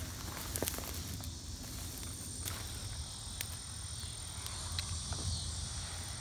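Outdoor ambience at a pond: a faint steady high drone of insects over a low steady rumble, with a few light clicks.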